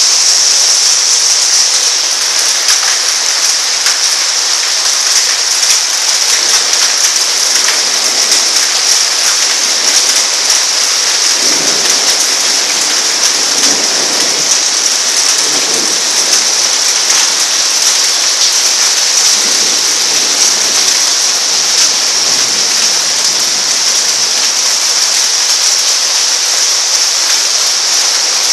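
Heavy rain pouring steadily, a loud even hiss. Low thunder rumbles come in about halfway through and again about two-thirds of the way in.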